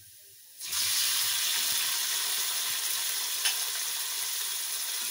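Marinated chicken pieces dropped into hot ghee in a frying pan, setting off a loud, steady sizzle that starts suddenly well under a second in.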